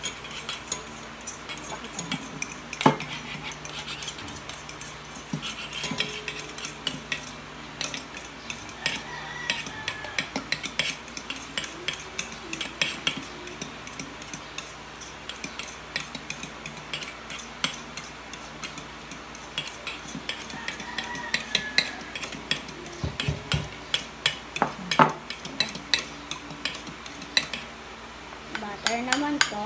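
Metal spoon clinking and scraping against a small stainless steel bowl as butter and water are stirred together: rapid, irregular clinks throughout.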